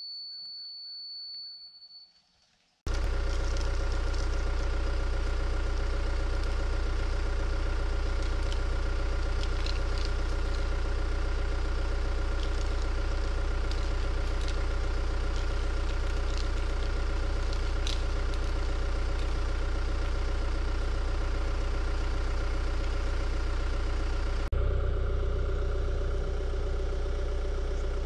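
John Deere 120 excavator's diesel engine running steadily with a strong low hum. It cuts in abruptly about three seconds in, and a few faint clanks sound over it.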